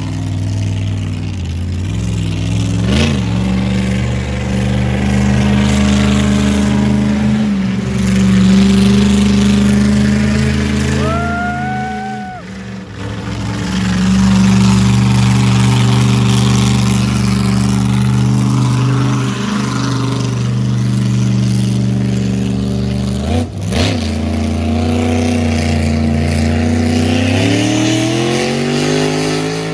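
A 1,500-horsepower monster truck engine running hard as the truck drives, its pitch rising and falling with the throttle. It eases off briefly about midway, then revs up with a rising pitch near the end.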